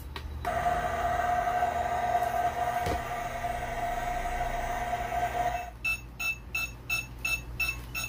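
Battery-powered toy microwave oven running its electronic cooking sound: a steady hum-like tone for about five seconds, then a string of short electronic beeps, about three a second, as its timer runs down. A single click is heard about three seconds in.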